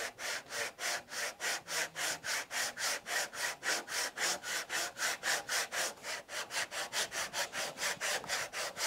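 Fine-toothed back saw cutting across a hardwood strip by hand, in quick even strokes of about five a second, each stroke a short rasp of the teeth in the wood. It is cutting the 5 mm-deep shoulder of a sliding-dovetail tongue, the blade run against a square guide block.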